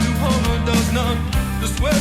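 A recorded rock song playing: a male-sounding sung vocal line over electric guitar, bass and drums.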